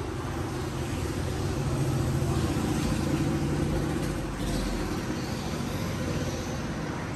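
A motor vehicle passing on the road, its engine and tyre rumble swelling about two seconds in and then fading.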